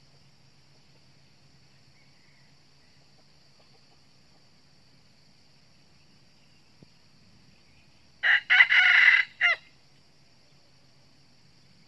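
A red junglefowl rooster crows once, about eight seconds in: a short crow of about a second and a half that breaks off abruptly. Under it runs a steady high insect drone.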